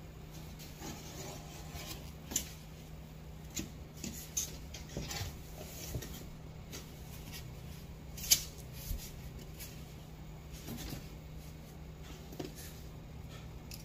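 Scattered light clicks and knocks of objects being handled, one sharper knock about eight seconds in, over a steady low hum.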